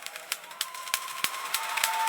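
Dental chair reclining: irregular sharp clicks of the mechanism over a faint steady whine, with a hiss that grows louder near the end.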